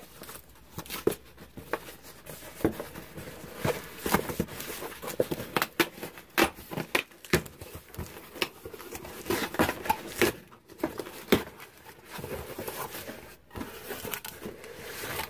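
Cardboard shipping box being opened by hand: flaps pulled back and torn open, with rustling, scraping and many sharp knocks and clicks of the cardboard being handled.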